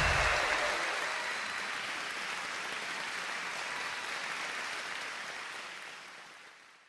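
Theatre audience applauding, the clapping growing gradually fainter and fading out near the end.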